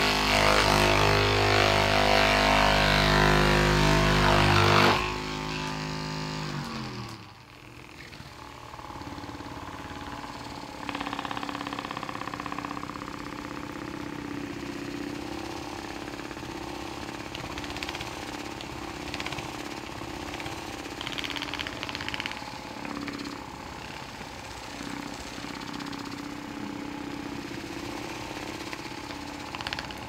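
Handheld percussion massage gun running against a patient's back with a loud, steady motor buzz. About five seconds in its pitch slides down and it gets quieter, then it keeps running at a lower, steady hum.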